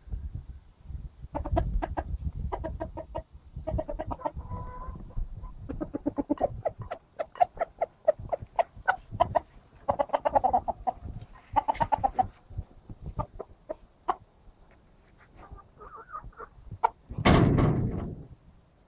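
Chickens clucking in quick runs of short, repeated clucks. Near the end comes one louder call about a second long.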